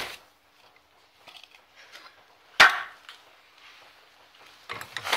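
Sharp knocks from tools and metal parts being handled while fitting a car wheel: a small knock at the start, a louder one about two and a half seconds in with a short ring, and light clattering near the end.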